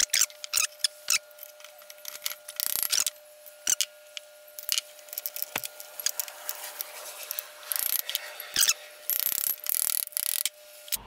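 Clicks, knocks and short scrapes of metal parts being handled as a multi-step lathe pulley and V-belt are fitted onto the headstock's spindle shaft, with a faint steady hum underneath.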